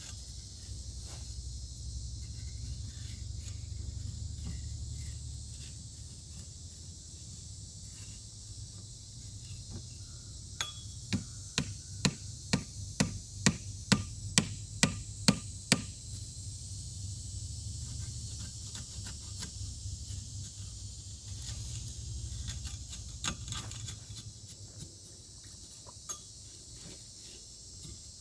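A hammer pounding dry concrete mix down into a post hole: a quick run of about a dozen even strikes, two to three a second, partway through. Crickets chirr steadily throughout.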